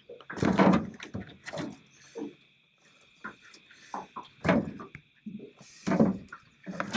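Irregular knocks and thuds on an aluminium boat's deck as a landed trout is handled in a landing net, about half a dozen with a short lull in the middle.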